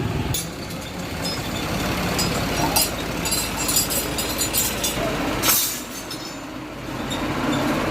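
Metal clinking and clanking in a quick irregular series, densest in the middle with one louder clank about five and a half seconds in, over the low running of a tractor engine while a wheat harvester is being fitted to it.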